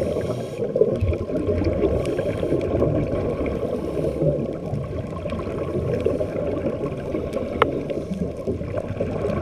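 Muffled underwater water noise recorded while scuba diving: a dense, steady low rushing with a few sharp clicks scattered through it, the loudest near the end.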